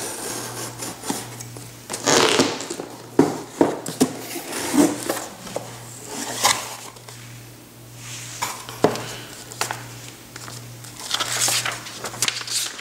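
A hobby knife scraping along the taped edge of a cardboard box, then the lid lifted and cellophane bags of plastic model parts and paper inserts rustling and crinkling as they are handled, with scattered light knocks.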